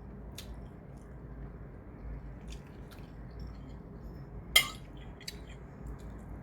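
A person eating: faint chewing and scattered small clicks, with one sharp clink of cutlery against a dish about four and a half seconds in, over a steady low hum.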